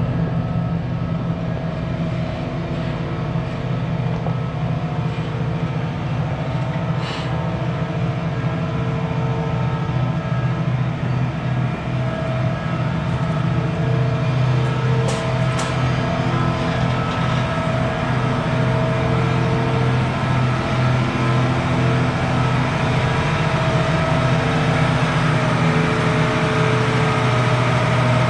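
A large diesel engine of farm harvest machinery running steadily at a constant pitch, getting slightly louder toward the end.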